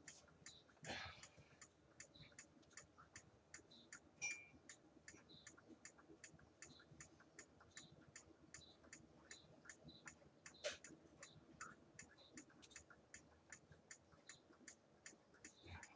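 Faint, steady ticking of a clock, about three ticks a second, with a few louder single clicks.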